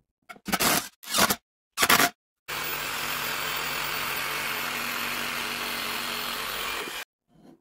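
Three short scraping strokes, then a power tool running steadily for about four and a half seconds that cuts off abruptly.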